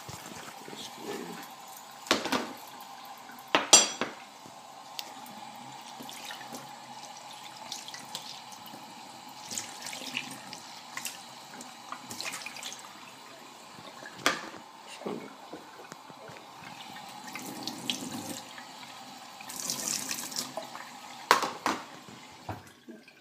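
Kitchen tap running steadily into a stainless steel sink while a dish is rinsed under it, with a few sharp knocks and clinks as the dish is handled.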